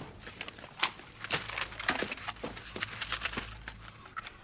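A series of light, irregular clicks and knocks over a faint low hum.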